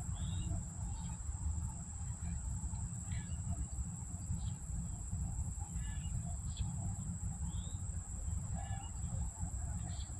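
Outdoor ambience: birds chirping on and off, with a steady high-pitched insect drone and a steady low rumble underneath.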